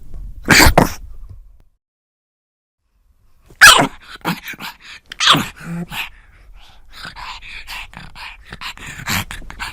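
Pug snorting and grunting, the snuffly breathing typical of its short-muzzled breed. There is a short burst near the start, a pause, a loud snort about three and a half seconds in, then a run of quick, shorter snorts and breaths.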